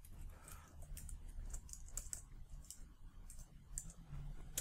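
Faint, scattered computer keyboard keystrokes: a few irregular clicks a second as code is typed.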